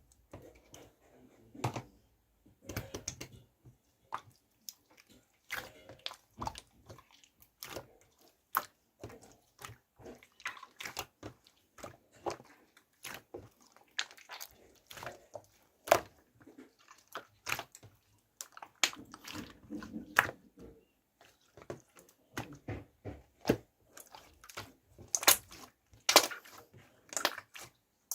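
Slime being kneaded and mixed by hand, with irregular sticky pops, clicks and squelches.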